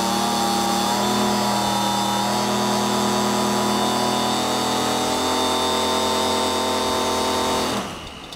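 Engine of a 1/3-scale Tiger Moth model biplane running hard on the ground, driving its propeller at a steady high pitch. Near the end it is throttled back, and the sound drops sharply to a low idle.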